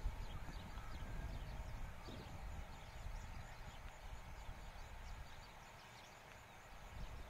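Faint outdoor ambience: wind rumbling on the microphone, stronger at the start and easing off, with faint distant bird chirps.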